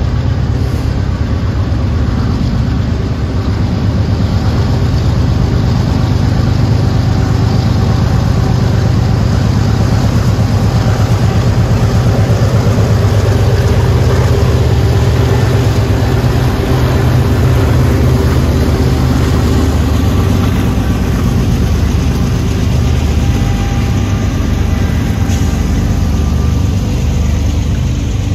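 Diesel locomotive engine running steadily at close range, with a deep, constant rumble.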